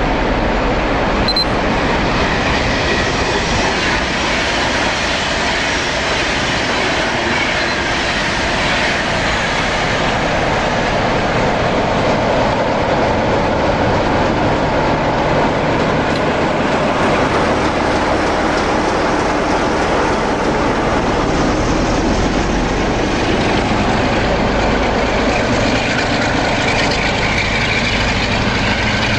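Diesel locomotives, Class 47 type, passing close at speed: the engines run loudly and the wheels clatter over the rails, steady throughout.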